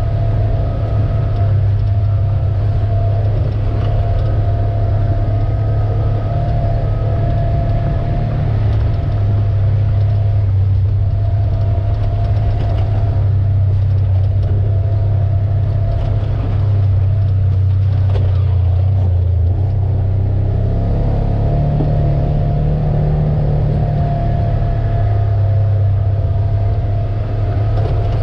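Polaris General UTV's engine running steadily under way, its low drone shifting in pitch as the throttle changes, with a thinner high whine that comes and goes.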